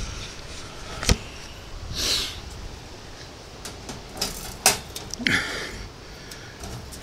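Wire cage trap holding a Tasmanian devil knocking and rattling on wooden boards: a sharp knock about a second in and a cluster of knocks a little past the middle, with two short breathy bursts between them.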